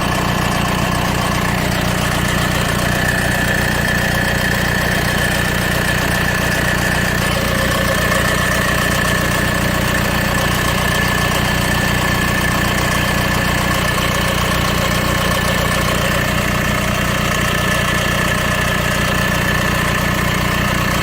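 Mercedes OM640 four-cylinder diesel idling with a heavy timing chain rattle and a steady high whine. The uploader puts the rattle down to the fuel rail pressure valve pushing back on a worn chain, the wear probably caused by engine oil dilution.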